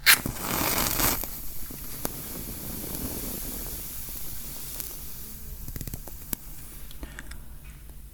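Three matches struck at once on a matchbox: a sharp scrape right at the start, a hissing flare for about a second, then the flames burning with a soft steady hiss and a few small crackles.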